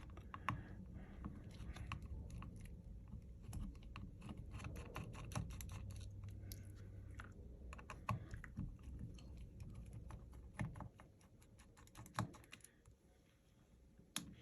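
Faint, irregular small clicks and taps of a screwdriver and tiny screws as the screws holding the Samsung Galaxy S20 FE's inner back cover are removed.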